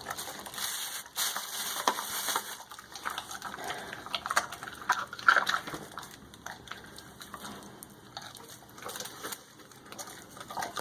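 Great Dane chewing raw chicken, bones and all: irregular wet crunching with sharp cracks of bone.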